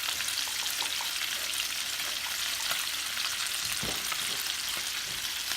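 Chicken pieces frying in oil in a nonstick pan, a steady sizzle as the freshly flipped pieces sear. A soft knock about four seconds in.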